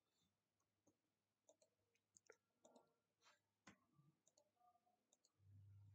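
Very faint computer keyboard typing and mouse clicks, scattered short clicks in near silence; a faint low hum comes in about five and a half seconds in.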